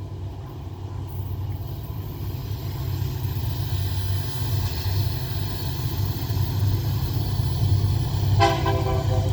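SD70 and AC44i diesel-electric locomotives approaching, their engines' low rumble growing steadily louder. About eight seconds in, the lead locomotive's horn starts to sound.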